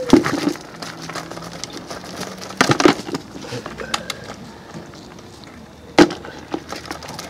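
Wire-mesh crayfish trap being emptied into a plastic bucket: the mesh rattles and scrapes against the bucket rim, squeaking at the start. A cluster of sharp knocks comes about a third of the way in, and one louder knock near the end.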